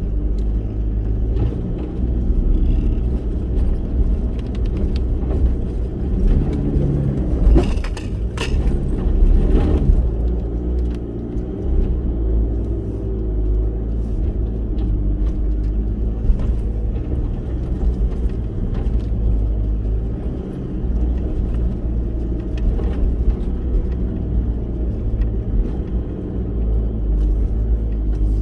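Four-wheel-drive vehicle driving on a rough dirt track, with steady engine and road noise and a few sharp knocks and rattles about eight to ten seconds in.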